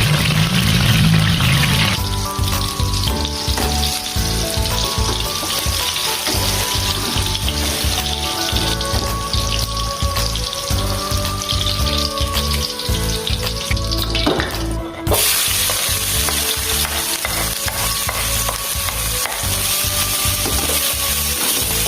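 Food frying and sizzling in a pan with stirring, over background music with a simple melody. About 15 seconds in, the sizzle turns louder and brighter.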